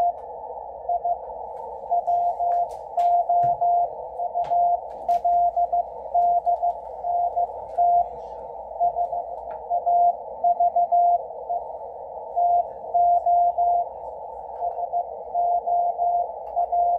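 Morse code (CW) from W1AW, the ARRL station, received on 80 metres by a Yaesu FTdx10 transceiver: a single beeping tone keyed in dots and dashes over band hiss, heard through a narrow 500 Hz filter. A few faint clicks come through in the first several seconds.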